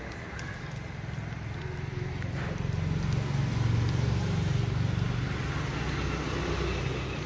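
Low rumble of a passing road vehicle, swelling to its loudest around the middle and fading again.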